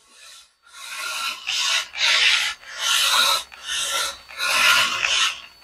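1:43-scale RC drift car's tyres rasping across a fabric track mat as it slides through drifts, in a string of swelling scrapes about one a second.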